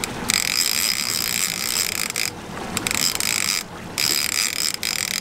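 Conventional trolling reel working under a fish's load, a steady high mechanical whirring and clicking of its gears and ratchet that stops briefly a couple of times.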